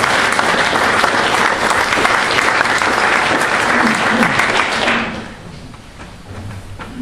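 Large audience applauding, the clapping dying away about five seconds in.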